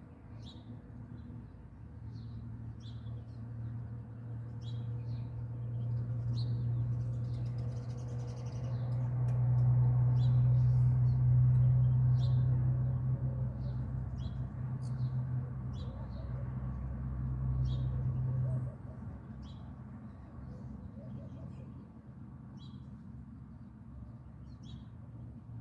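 Small birds chirping in short, repeated high calls throughout. Under them a loud, low, steady hum builds up, peaks midway and cuts off suddenly about three-quarters of the way through.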